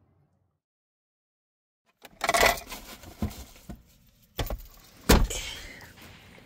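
About two seconds of dead silence, then rustling and clattering with several sharp knocks, the loudest about five seconds in: objects being handled and set down.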